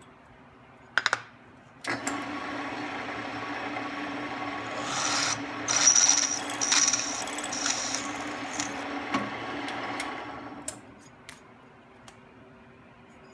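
Drill press starting about two seconds in and running with a steady hum while a twist drill bores out a hole to final size in an aluminum plate, the cutting loudest in the middle; the motor fades out after about ten seconds. A brief knock comes about a second in.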